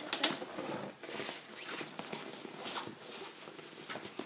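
Rustling and scuffing of a drawstring bag as a hand rummages inside it, with irregular small scrapes and taps.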